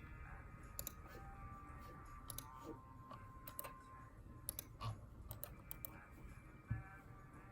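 A few scattered keystrokes on a Keychron K2 aluminium mechanical keyboard with brown switches, sparse and irregular rather than steady typing, over faint background music.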